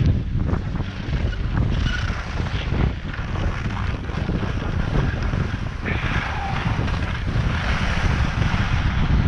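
Wind buffeting the camera's microphone in a steady low rumble, with the hiss of skis sliding over packed snow that grows louder about six seconds in.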